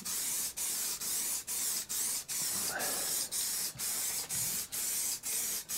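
Aerosol can of matte lacquer spraying, a hiss in short bursts about two a second.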